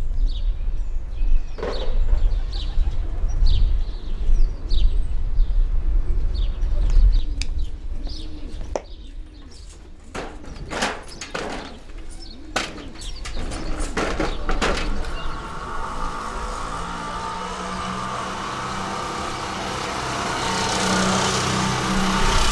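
Street ambience: short bird chirps over a low rumble, then a run of sharp knocks, then a steadier hum near the end.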